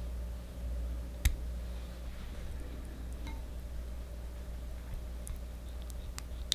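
Silicone spatula stirring thick chocolate ganache in a glass bowl: quiet squishing with a few faint ticks, and one sharp click about a second in, over a steady low hum.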